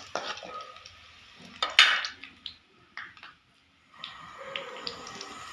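Cooking at a kadhai of hot oil: short metal clinks and a loud rasping burst about two seconds in. A steady frying sizzle sets in about four seconds in.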